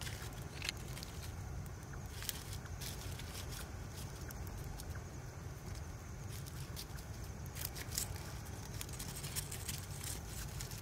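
Small twig-and-leaf fire crackling, with scattered sharp pops, a few louder ones about a second in, at two seconds, and near the end, over a steady low rumble.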